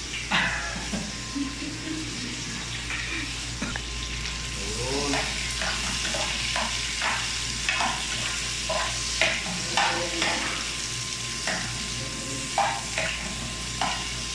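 Sliced onions sizzling in hot cooking oil in a frying pan, stirred with a metal spoon that scrapes and clicks against the pan about a dozen times, irregularly, over a steady frying hiss.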